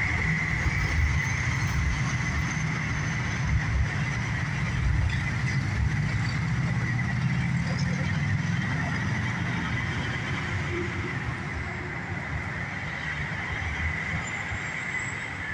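Road traffic passing under a concrete overpass: a semi tractor-trailer pulling away and pickups and cars driving by, a steady low engine and tyre rumble. A steady high whine runs underneath.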